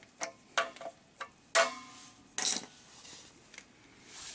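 A scattering of small metallic clicks, clinks and knocks as a check valve and its fittings are handled and refitted on a 12-volt air compressor, with two louder knocks in the middle.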